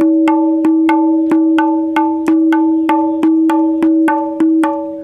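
Kendang ketipung, a small Javanese drum with a jackfruit-wood shell and a chrome-rimmed head, struck by hand in a steady run of about three strokes a second. Each stroke gives a sharp, clearly pitched ringing tone that carries into the next, and the ring dies away after the last stroke near the end. It is a sound test of the newly finished drum.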